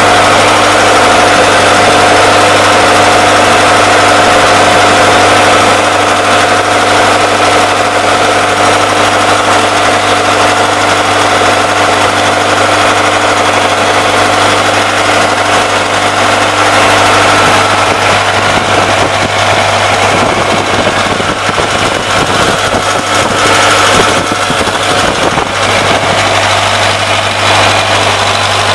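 Engine of a Perfect Gas Generators PGG biogas-fuelled generator set running steadily at constant speed, loud and even.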